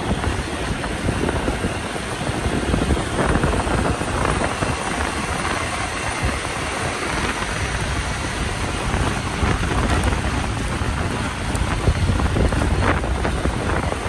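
Steady road traffic noise with a low rumble, mixed with wind buffeting the microphone.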